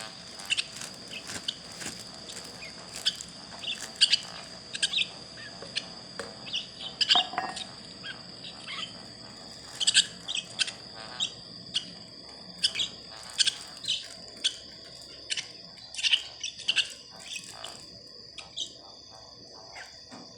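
Baby bird chirping: short, sharp cheeps repeated at an irregular pace, with a steady high-pitched tone running underneath.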